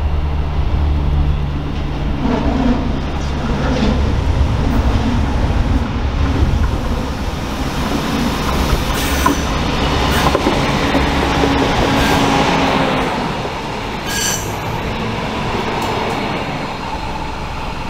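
A red DB Talent diesel multiple unit runs past close by. Its engines drone low and steady at first, then the rolling noise swells as it draws level, with short high wheel squeals on the curved track twice near the middle.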